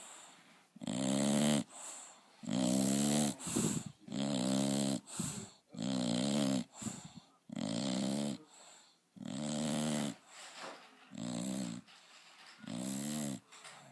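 Bulldog snoring loudly, a pitched snore on each breath, roughly every one and a half seconds, eight in all.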